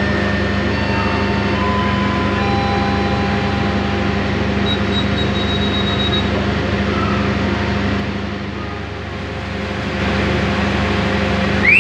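Steady low drone of a diesel passenger train standing at the platform, its engines idling. The level sags briefly about eight seconds in.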